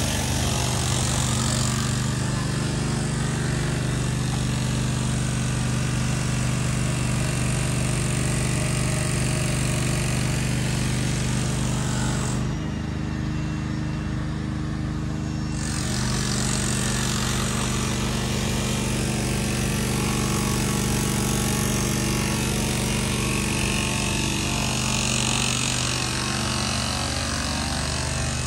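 A steady engine hum with a constant hiss of street noise over it; the hiss drops away for about three seconds midway while the hum carries on.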